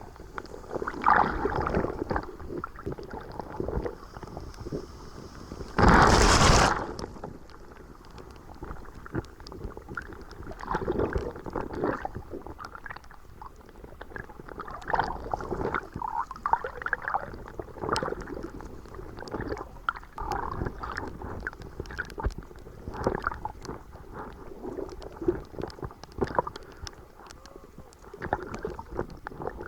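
Sea water sloshing and gurgling around the swimmer, heard muffled at and under the surface in irregular surges, with one loud burst of splashing about six seconds in.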